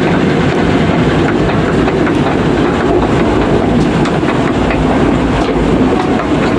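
Log flume boat ride in motion: a steady, loud rattling rumble from the boat running along its track, with rushing water mixed in.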